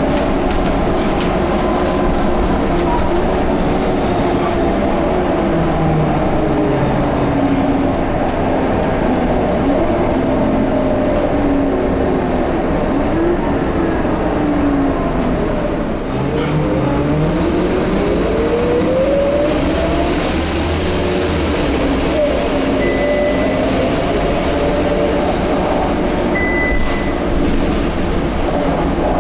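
Scania K230UB bus's five-cylinder diesel and drivetrain slowing, the pitch of the engine and gear whine falling for about half the time, then pulling away with a rising whine. A high turbo-like whistle climbs and then fades near the middle. The uploader suspects the turbo and the hub reduction axle for these strange noises.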